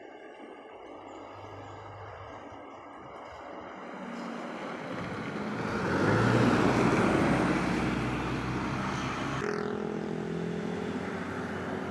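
A motor vehicle approaches along the road and passes close by, engine and tyre noise building to their loudest about six seconds in, then falling away as it goes; a steady engine hum carries on near the end.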